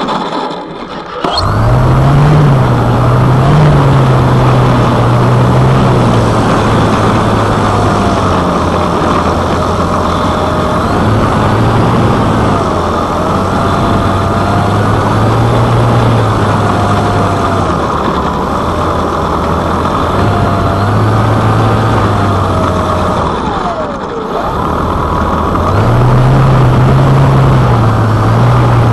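Electric RC plane's brushless motor (NTM 5060, 380 kv) turning a 15x6 propeller at low, varying throttle while taxiing, heard from a camera mounted on the cowl just behind the prop, with a loud rush of prop wash over the microphone. The motor is nearly idle for the first second or so, then runs with its pitch stepping up and down as the throttle is worked, easing off briefly about four-fifths of the way through.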